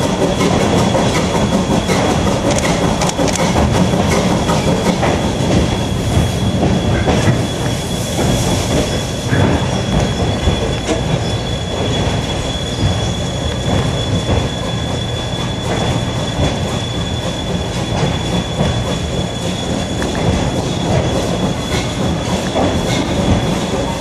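Steam-hauled train rolling, heard from the caboose: steel wheels rumbling and clicking over the rails, with a steady high-pitched wheel squeal.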